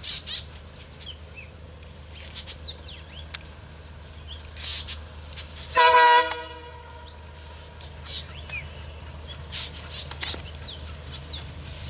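WDM-3A diesel locomotive sounding its horn once, a short loud multi-tone blast about six seconds in, over a steady low rumble as the train approaches. Birds chirp throughout.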